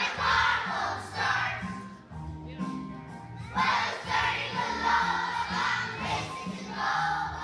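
A group of children singing and shouting along to a song's backing track, which has a bass line stepping in a steady beat.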